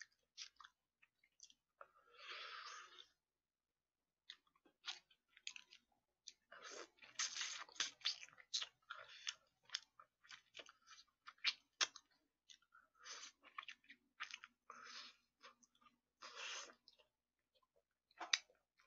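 Quiet, close-miked chewing of braised chicken with aged kimchi: wet mouth clicks and smacks come in irregular spurts, thickest in the middle, with a brief breathy hiss about two seconds in.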